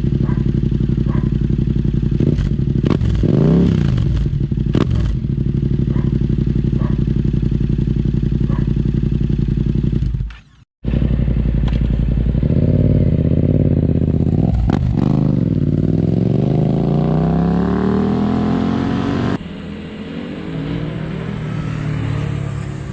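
Yamaha MT-07 (FZ-07) 689 cc parallel-twin engine breathing through an aftermarket Akrapovic carbon exhaust: idling steadily with a couple of quick throttle blips. After a sudden break, it revs again and then climbs steadily in pitch for several seconds before the sound drops off abruptly.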